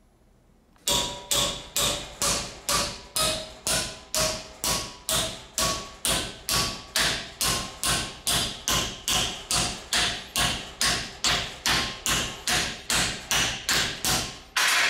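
Hammer blows on an aluminium welded test piece clamped in a steel vise, bending it over in a bend test of the weld. The strikes start about a second in and come steadily, about two and a half a second, each with a short metallic ring.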